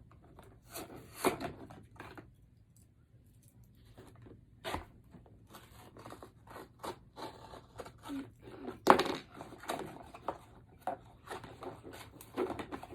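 Blind-box toy packaging torn open and handled: a run of short tearing, rustling and crinkling noises, with a brief lull a couple of seconds in and the loudest tear about nine seconds in.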